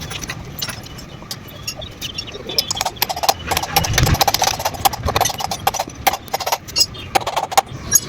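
Irregular clicking and clattering over a low steady hum, louder and busier about three to five seconds in.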